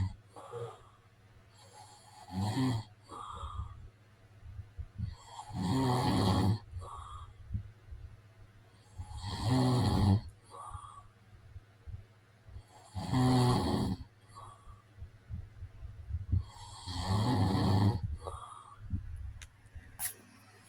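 A man snoring in his sleep: five loud snores, one about every three and a half to four seconds, each followed by a short, softer puff of breath.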